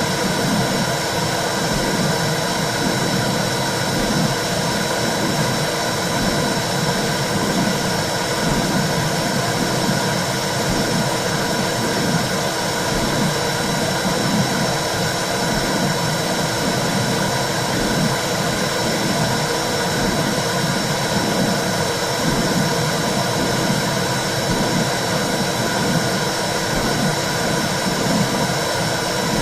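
Recorded or simulated womb sound for soothing a baby: a steady, loud whooshing roar with a low rhythmic pulse running under it.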